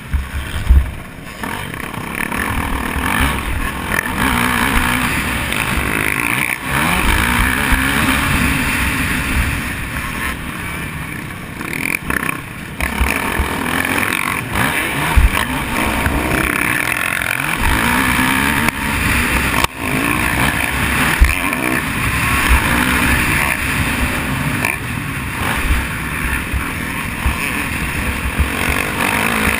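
Motocross dirt bike engine heard up close from the bike itself, revving up and falling back again and again as it rides the track, with irregular low thumps on the microphone.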